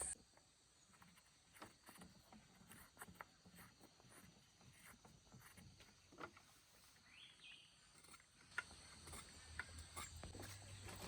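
Near silence: faint outdoor ambience with scattered small clicks and rustles, a little busier toward the end.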